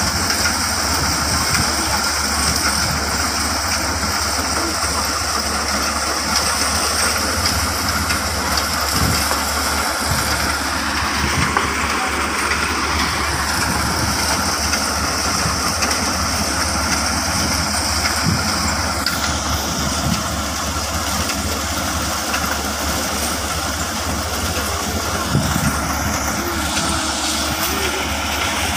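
Combine harvester's diesel engine and threshing machinery running steadily under load as it works through a layer of dried sunflower heads, a deep rumble with a steady high whine on top that shifts slightly lower about two-thirds of the way through.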